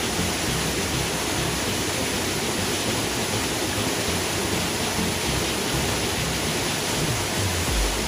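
Waterfall: a steady, even rush of falling water, with a low rumble coming in near the end.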